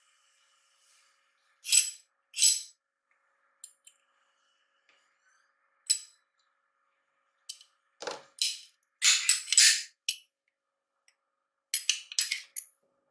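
Irregular sharp metallic clicks and clinks, with short scrapes, from a folding aluminium camera stand and a hex key being handled. The loudest run of rapid clicks and scrapes comes about nine seconds in.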